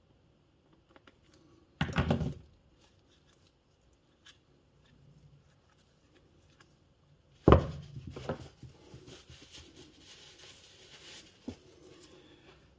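Hands handling parts and tools during a bench repair of an e-bike motor: a brief clatter about two seconds in, a sharp knock about halfway through, then rustling and small clicks.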